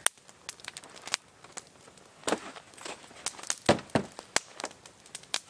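Wood campfire crackling with scattered sharp pops and snaps, mixed with a few heavier rustles and knocks from a person moving in snow and handling gear. The loudest of these come about two and a half and about three and a half to four seconds in.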